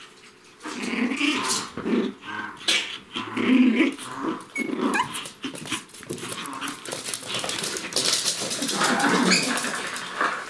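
Pomeranian puppies play-fighting, growling in short irregular bursts with scuffling against the floor, starting about a second in.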